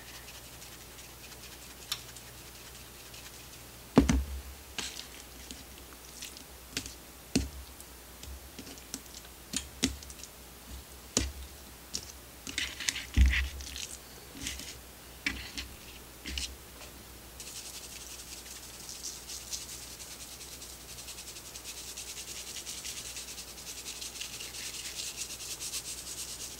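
Seasoning salt and pepper shaken from shakers onto raw steak strips, and the strips handled and turned over on a cutting board, with scattered taps and knocks. A steady hiss starts about two-thirds of the way in.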